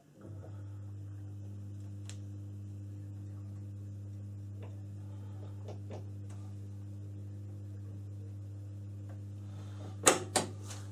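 Steady low electrical hum in a small room, with a few faint clicks as the Rockwell hardness tester's elevating handwheel is turned to bring the blade up to the indenter. Near the end comes a quick cluster of sharp knocks from hands on the tester, the loudest sounds.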